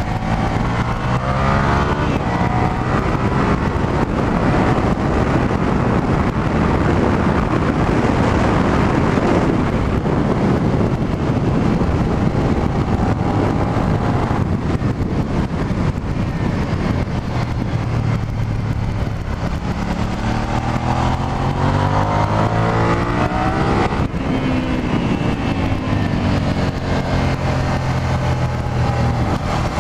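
Suzuki SV650S's 645 cc V-twin engine rising and falling in pitch as the throttle opens and closes through corners and gear changes. Heard from inside the rider's helmet under heavy wind rush, which is loudest in the first half.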